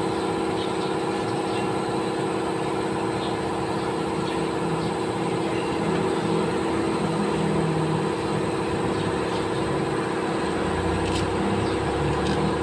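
Steady hum of an engine running at a constant speed close by, with a low rumble swelling briefly and a light click near the end.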